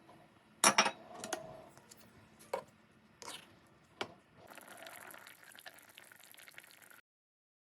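Kitchen handling sounds from cooking: several sharp knocks and clinks of cookware, the loudest near the start. Then a soft, steady hiss for about two and a half seconds that cuts off suddenly.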